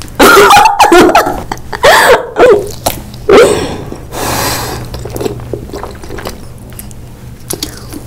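Squishy, wet bites and mouth sounds on a soft, rubbery hand-shaped jelly, with short squeaks and clicks, loudest in the first three seconds and with a brief hiss a little after; quieter smacking follows.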